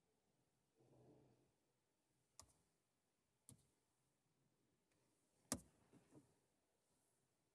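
A few sharp, faint clicks a second or two apart from fingertip taps on a Dacia Sandero Stepway's dashboard touchscreen, the loudest about five and a half seconds in, over near silence. A brief soft muffled sound comes about a second in.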